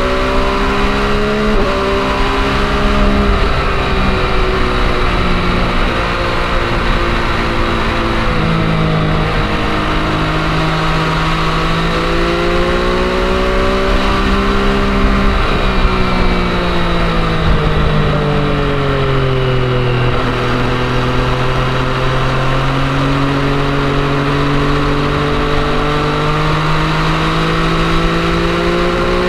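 MV Agusta Brutale 800's three-cylinder engine pulling uphill while riding, changing gear a few times in the first ten seconds, then rising and falling in pitch with the throttle, over steady wind noise.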